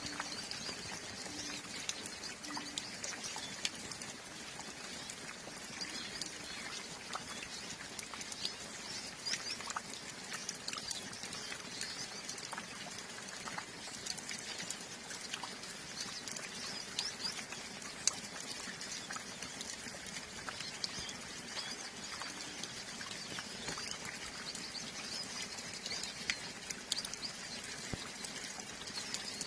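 A flock of siskins (pintassilgos) chirping in quick, high twitters over a steady patter of light rain, with scattered drops dripping.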